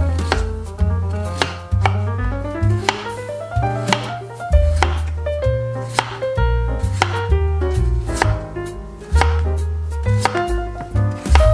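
Knife chopping on a cutting board in irregular strokes, with background music playing throughout.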